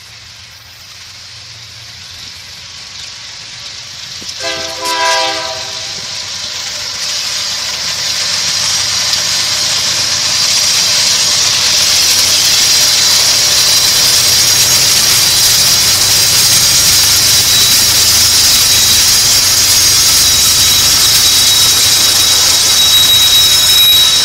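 Diesel freight train approaching and passing close by. The locomotive's air horn gives one short chord blast about four seconds in. The sound of the train grows steadily louder and then holds as a loud, steady rush with a high hiss and a thin high whine as the cars go by.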